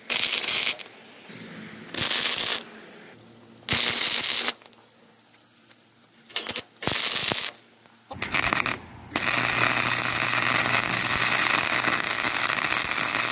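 Welder crackling as holes are welded shut: several short bursts of under a second each, then a steady run of crackling from about nine seconds in.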